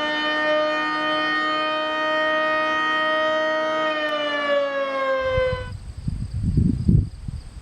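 Federal Signal Model 5AT outdoor warning siren sounding its daily 1 PM blast: a steady wail that starts to fall in pitch about four seconds in and cuts off abruptly a couple of seconds later. Low rumbling gusts take over near the end.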